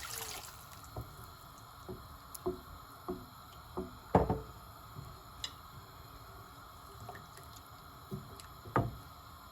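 Vegetable stock heating in a pan of stir-fried vegetables with a steady hiss, while a spoon stirs and knocks against the pan every second or so, loudest about four seconds in and near the end.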